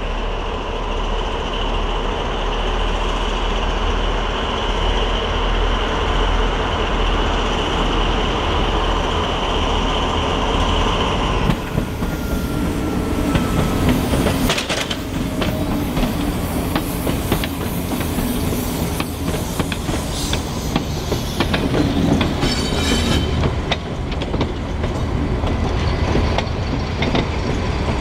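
Two BB 67400-family diesel-electric locomotives hauling a loaded steel-coil freight train: a steady engine drone, then, after a sudden change about a third of the way in, the locomotives pass close with wheels clicking over rail joints and a brief high squeal about two-thirds through.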